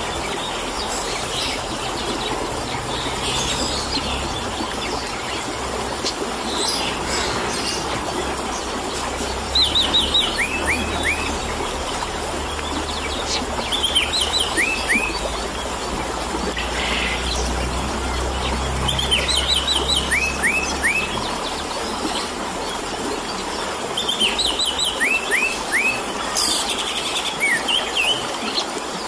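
Orange-headed thrush (anis merah) singing: phrases of three or four quick sweeping whistled notes repeat every four to five seconds, with scattered higher chirps between them. Under the song runs a steady trickling-water hiss.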